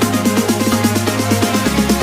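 Electronic dance music with a steady beat, a fast repeating synth pattern and a sustained bass that shifts to a lower note near the end; an instrumental stretch of the backing song.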